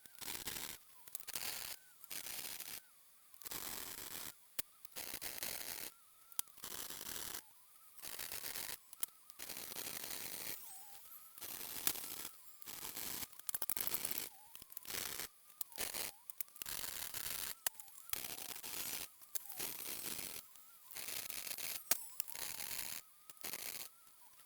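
Welder laying short, separate welds on a sheet-metal patch panel: a string of crackling, hissing bursts with brief pauses between them, about one every second or two.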